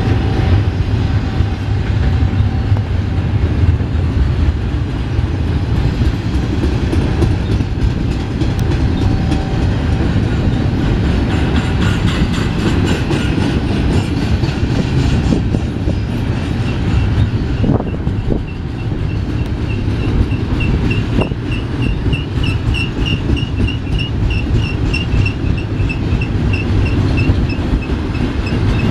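BNSF double-stack container train's loaded well cars rolling past: a steady heavy rumble of steel wheels on rail with clacking over the rail joints. About two-thirds of the way through, a high pulsing squeal joins in, repeating a couple of times a second.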